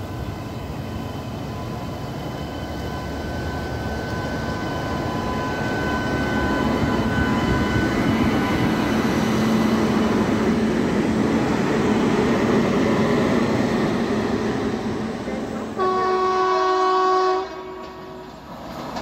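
WAP-7 electric locomotive and coaches of an arriving passenger train running in past at close range, a steadily growing rumble of wheels on rail. Near the end a single loud locomotive horn blast lasts about a second and a half and cuts off suddenly.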